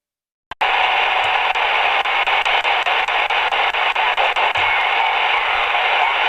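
HF amateur radio receiver hissing with band noise on a quiet 20-meter band, cutting in with a click about half a second in. Faint regular ticks of interference, several a second, run through the hiss for the first few seconds.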